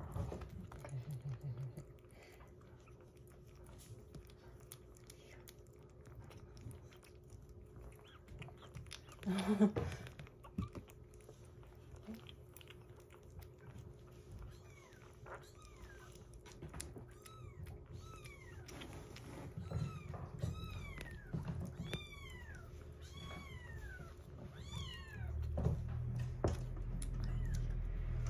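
A kitten eating wet weaning food from a glass bowl, with small wet chewing and lapping clicks and a single bump about a third of the way in. From about halfway, a run of short, high, falling kitten mews comes roughly once a second.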